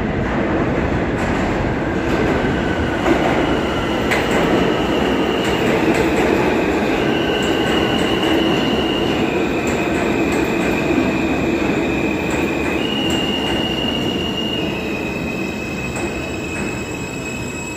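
R160 subway train pulling into an underground station and slowing: a steady rumble of wheels on rail, with high squealing tones from about five seconds in that shift between two pitches every second or two.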